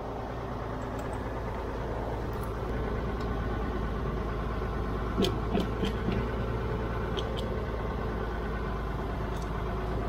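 Old Ford farm tractor's engine idling steadily, with a handful of short metallic clacks about five to seven seconds in from the levers in the shift gate being worked; the levers are stuck.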